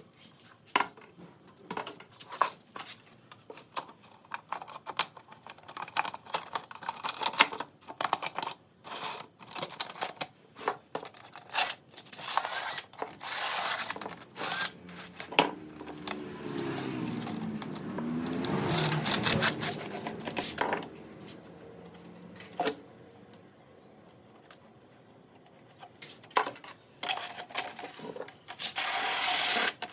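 Workshop handling of wood and tools: a run of sharp knocks and clicks, then scraping. Midway a small power tool runs for about five seconds, its whine bending up and down, and near the end there is a few seconds of steady rubbing noise.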